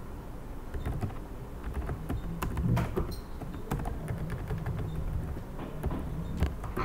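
Computer keyboard typing: irregular, quick keystroke clicks as code is entered, over a low steady hum.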